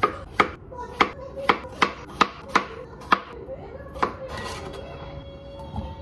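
Kitchen knife chopping food on a cutting board: about nine sharp, unevenly spaced chops in the first four seconds.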